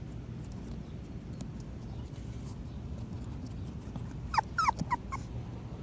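Patterdale terrier puppy whimpering: several short, high whines a little past halfway through, over a low steady rumble.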